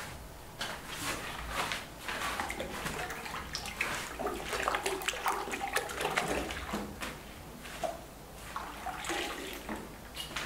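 Bare hands working thick wet paint: irregular wet swishing, squelching and sloshing, as the hands stir liquid paint in a plastic bucket and smear it.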